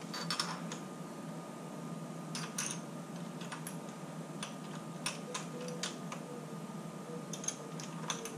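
Scattered light clicks and rustles from hands handling the electric motorbike's cable bundle at the handlebar, over a faint steady hum.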